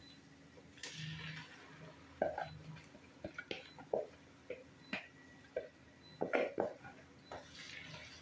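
A wooden spoon and a bowl knocking and scraping against a cooking pot as blended pepper mix is tipped in and stirred through oil and meat. The knocks are irregular, with the sharpest clusters about two seconds in and between six and seven seconds in.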